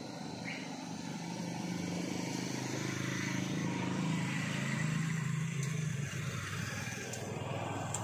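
A motor vehicle passing by: a low engine hum that grows louder to a peak about halfway through, then fades away.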